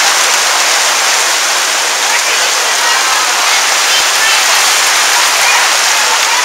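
Heavy thunderstorm rain pouring down onto a gazebo canopy overhead, a loud, steady hiss of rain. Faint voices show through it now and then.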